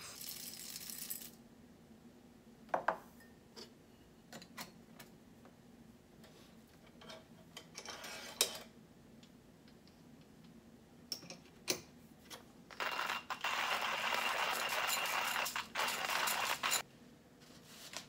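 Coffee being prepared with a stainless steel hand coffee grinder: scattered small clicks and knocks, then a dense rattle of about four seconds near the end that stops abruptly.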